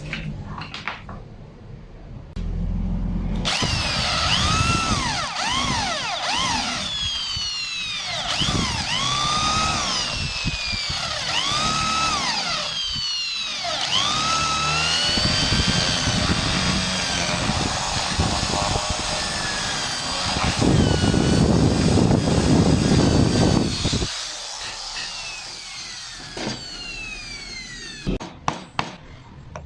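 Handheld electric power tool cutting into wood, its motor whine dropping and recovering in pitch over and over as it takes load and eases off. It starts about three seconds in, gets rougher and louder for a few seconds past the middle, and stops near the end with a few knocks.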